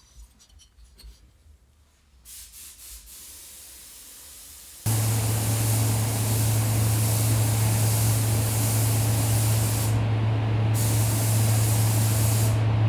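A loud, steady hiss of rushing air with a low electric hum starts suddenly about five seconds in and runs on without a break; before it there are only faint scraping sounds.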